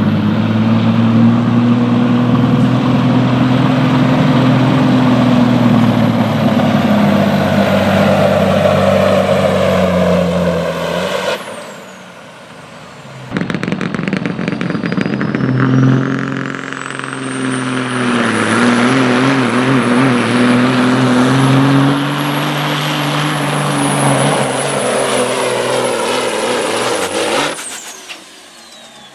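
Diesel semi truck engines working at full power under heavy load while pulling a weight-transfer sled, with a slowly wavering engine note and a high whine. First a Kenworth pulls; the sound drops away about 11 seconds in, then a Freightliner cabover pulls and cuts off near the end.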